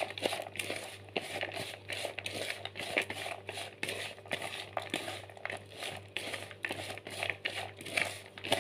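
A plastic spoon stirring shredded carrot, corn kernels and spring onion in a plastic bowl, making irregular rustling and scraping strokes as the ground spices are mixed evenly through the fritter mix.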